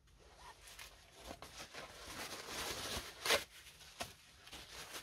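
Rustling and light clicking of gloved hands handling a brush in a plastic tub, swelling to one short, louder scrape about three seconds in.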